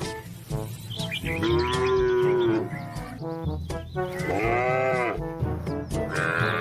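Cows mooing: several long calls one after another, each rising and falling in pitch, the loudest about a second and a half in and again past four seconds, with another starting near the end.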